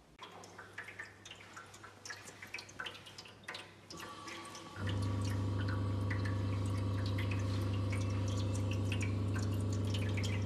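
Water running from a faucet and splashing and dripping into a basin, a patter of small irregular splashes. About five seconds in, a loud steady low hum joins it and becomes the loudest sound.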